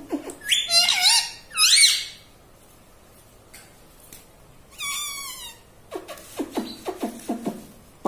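Ring-necked parakeet calling: a few loud, shrill calls that rise and fall, another call about five seconds in, then a quick run of short, falling chatter notes near the end.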